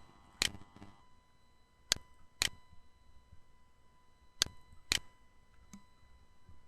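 Computer mouse button clicks: three pairs of sharp clicks about half a second apart, roughly two seconds between pairs, then a faint single tick.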